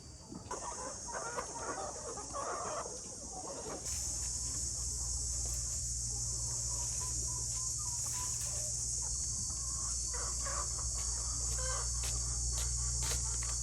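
Chickens clucking. About four seconds in, a loud, steady chirring of crickets suddenly takes over, with only a few clucks and clicks above it.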